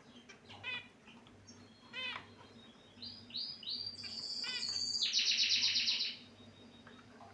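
Pet finches calling: two short chirps in the first two seconds, then a run of quick notes about three seconds in that builds into a loud, rapid trill and stops about six seconds in.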